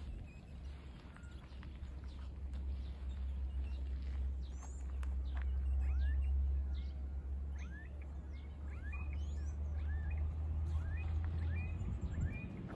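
Small birds calling from the scrub with many short, hooked chirps, several a second in the second half. Beneath them a low rumble swells to a peak around the middle and fades away near the end.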